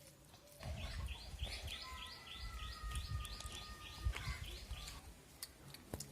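A bird calling: a quick run of about a dozen evenly repeated high chirps, roughly four a second, which stops about four seconds in. A low rumble runs under it, and there is a sharp click near the end.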